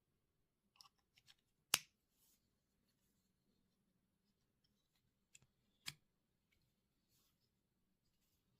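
Sparse clicks of a pocket multitool being handled: a few small clicks about a second in, one loud click just before two seconds in, and two more clicks near six seconds.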